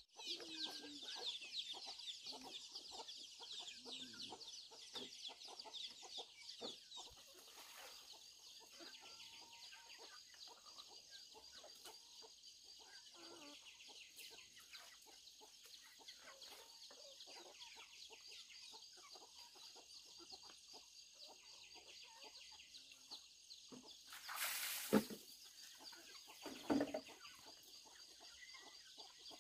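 Chickens clucking on and off against a dense, high-pitched chirping that thins out after about seven seconds into a steady thin high tone. A brief loud burst of noise comes near the end.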